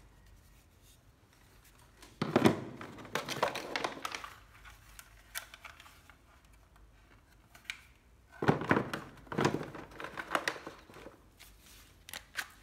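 A Ryobi 12V cordless drill and its plastic case being handled, in two bouts of clattering and rustling, about two seconds in and again about eight seconds in, with a couple of sharp clicks near the end. The drill's motor is not running.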